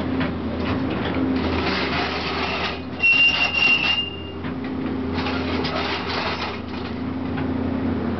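Caterpillar 320 excavator's diesel engine running steadily while its bucket and thumb crunch through a stucco wall, with spells of crackling and clattering debris. A high metallic squeal sounds about three seconds in, during the loudest crunching.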